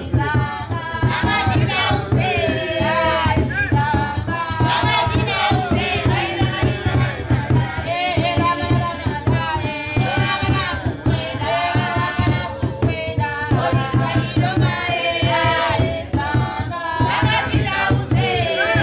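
A group of village women singing together in an African folk song, with a steady low drum beat underneath.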